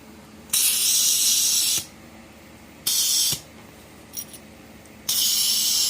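Butane hissing from a Ronson butane can pressed into the fill valve of a Ronson torch, in three spurts: a long one about half a second in, a short one near the middle, and another near the end. The bursts are the torch's fuel tank being refilled.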